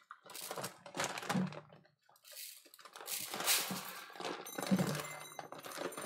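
Dry sushi rice grains rattling and pattering as they are scooped and poured into a measuring cup and colander, in several short irregular pours.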